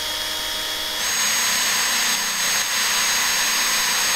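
A power tool running steadily with a high whine, its pitch stepping up about a second in and then holding.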